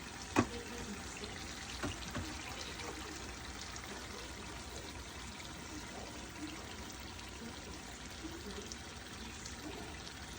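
Collard greens frying in oil in a pan, a steady sizzle, with a sharp knock just after the start and two lighter clicks about two seconds in.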